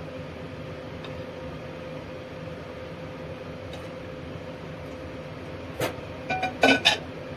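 A steady low hum, then about six seconds in a few short, sharp clinks of kitchen utensils and crockery as the cooked dish is served from the pan.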